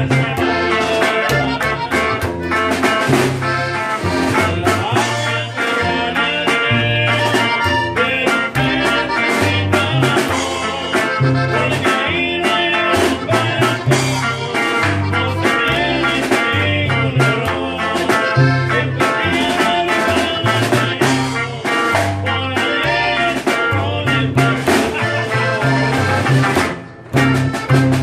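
A live norteño trio playing a corrido. The bajo sexto strums and walks the bass line, a button accordion plays the melody, and a snare drum keeps the beat. The music breaks off briefly about a second before the end.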